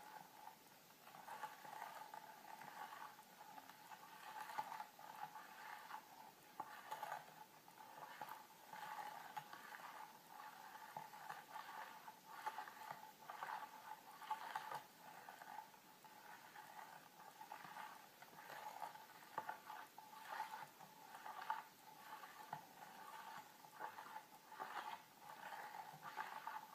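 A metal spoon stirring jelly mix in a bowl: quiet, irregular light scrapes and clinks against the bowl's sides, several a second.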